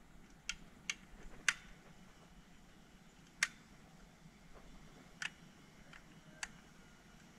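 Sharp plastic clicks from handling a toy gel-ball blaster built as an AK-47: about six separate clicks at irregular intervals, the loudest about a second and a half in.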